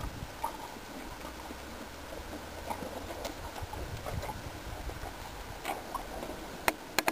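A donkey chewing close up: a run of small irregular crunches and smacks, with a few sharper clicks near the end.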